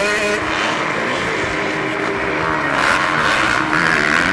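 Motocross dirt bike engines revving hard, their pitch rising and falling with the throttle as riders race over the jumps; the revving swells louder about three seconds in.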